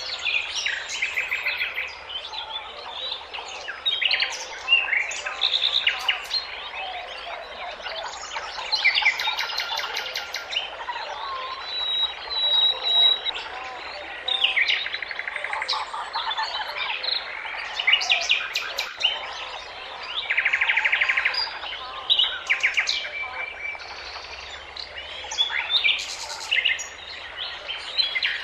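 A chorus of many songbirds chirping and singing at once, with overlapping calls and rapid trills throughout.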